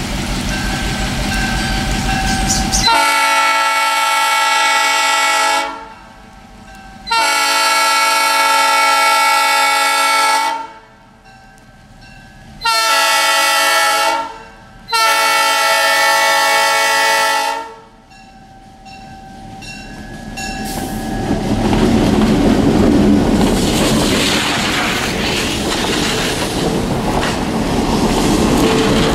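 Diesel locomotive's multi-chime air horn blowing the grade-crossing signal: long, long, short, long. A low engine rumble comes before it. From about twenty seconds in, the locomotive and passenger cars pass close by, a rising rumble with wheels clattering on the rails.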